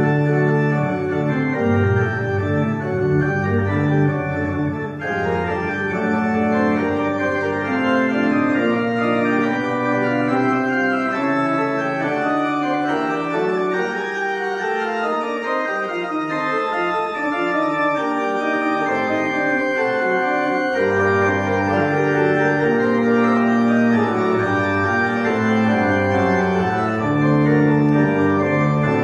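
Two-manual church organ played with both hands, sustained chords and moving lines at a steady volume. The low bass notes drop out for a few seconds midway, then return.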